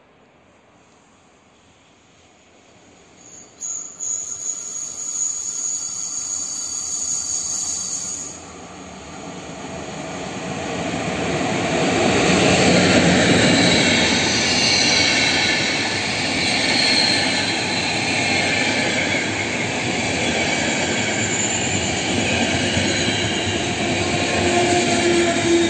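Passenger train hauled by an EP09 electric locomotive passing through the station: a high-pitched ringing starts about three seconds in, then the loud, steady rumble of the locomotive and coaches on the rails builds about ten seconds in and continues as the coaches go by.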